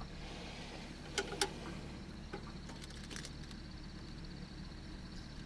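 A couple of faint clicks as the loader's ignition key is turned, and the engine gives no response at all, not even a crank: the dead loader whose ignition is suspected. A low steady rumble runs underneath.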